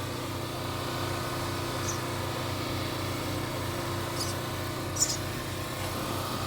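Nestling baby birds giving a few short, high-pitched squeaky peeps, about two, four and five seconds in. A steady motor hum runs underneath.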